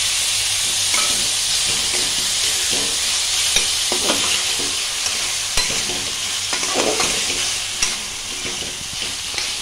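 Banana blossom and fried potato sizzling in oil and masala in a metal kadai while a spatula stirs them, scraping and knocking against the pan at irregular moments. The sizzle eases slightly near the end.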